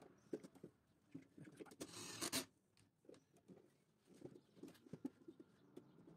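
Faint handling noise of stranded electrical wires with ferrule ends being bent and fed through the panel's wiring duct: scattered small clicks and rustles, with one louder brief scratchy rustle a little after two seconds in.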